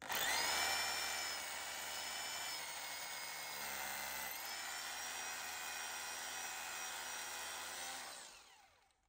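SDS drill running steadily as it bores a hole into a wall along an existing pilot hole, which lets it go through easily. Its motor whine dips briefly about four seconds in and winds down near the end.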